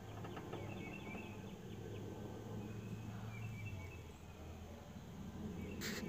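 Faint outdoor ambience: birds chirping over a steady low hum, with a brief noise near the end.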